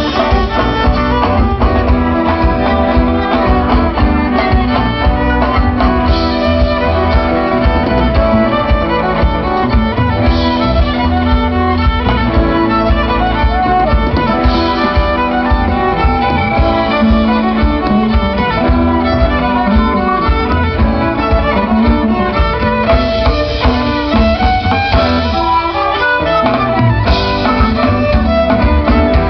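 A folk band plays live through a stage PA, with a bowed violin prominent over electric guitars, bass guitar and drum kit.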